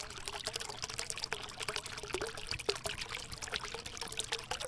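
Shallow water running over rock, a steady trickle with many small splashes.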